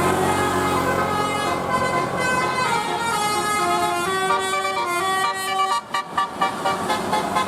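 Indonesian bus 'telolet' horn: a multi-tone horn playing a melody in stepped notes, breaking into short quick toots about six seconds in.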